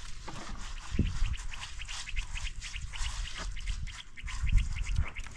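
Birds calling in a quick run of short, high notes, several a second, with a couple of low thumps.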